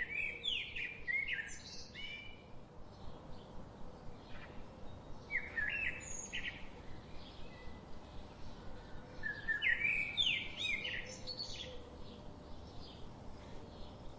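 Songbirds chirping in clusters of quick, high chirps that come about every four to five seconds, over a faint steady hiss.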